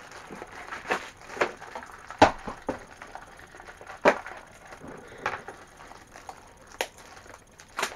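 Handling and opening of Funko Mystery Mini packaging: irregular rustling and crinkling of the small box and blind bag, with scattered sharp clicks and taps as the little vinyl figures and boxes are handled.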